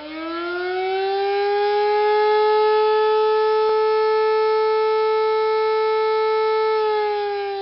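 A siren winding up to a steady pitch, holding it, then starting to wind down near the end.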